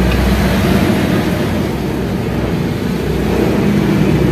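A steady low rumble of background noise with no distinct events.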